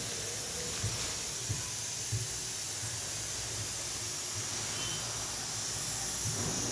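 Steady background hiss with a few faint soft thumps in the first couple of seconds.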